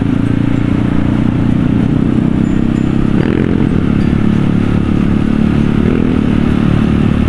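Supermoto motorcycle's engine running at low, steady speed in slow traffic, with small throttle changes about three and six seconds in.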